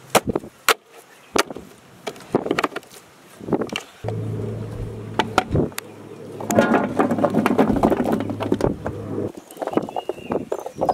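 A few sharp clacks from a plastic push-down French fry cutter in the first few seconds as a potato is pressed through its blade grid. Then raw potato sticks are tipped from the cutter's plastic container into a large steel bowl, a dense clattering over a steady low hum, followed by a few lighter clicks near the end.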